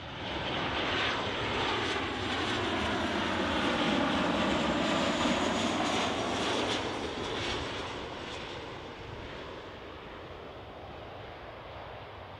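Airliner passing by: the engine sound swells in at the start, is loudest around the middle, and slowly fades away.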